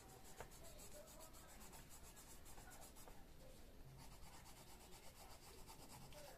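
Faint scratching of a coloured pencil rubbed back and forth on a colouring-book page.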